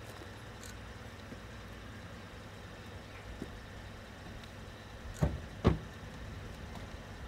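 A car idling with a steady low rumble. About five seconds in there are two sharp thumps, half a second apart, as the car's door is shut.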